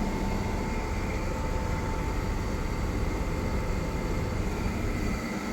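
Classic Zamil split air conditioner's outdoor unit running steadily, compressor and condenser fan humming with a thin steady tone. It is running normally after service, drawing its usual 9 to 10 amps.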